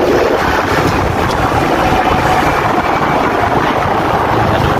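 Loud wind noise on the microphone while riding a Honda Supra X 125, its single-cylinder four-stroke engine running under it. No rattle comes from the headlight cowl, which has been padded with foam and double tape to stop its vibration.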